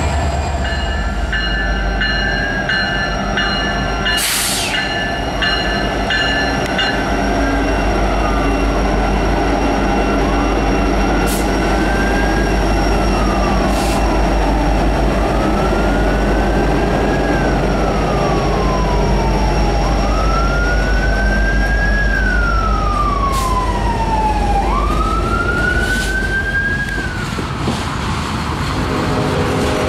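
A freight train rolling past with a steady rumble of wheels on rail and a few sharp clanks. Over it a siren wails, rising and falling about every four to five seconds, grows louder after about twenty seconds and stops near the end.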